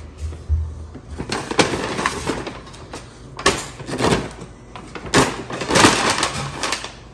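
Plates and takeout food containers clattering and knocking as they are handled and set down, in a series of irregular knocks and rattles.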